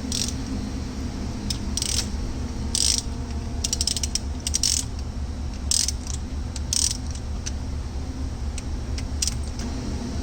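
Ratchet wrench clicking in short, irregular strokes as the rocker arm bolts on the Isuzu engine are turned loose, over a steady low hum.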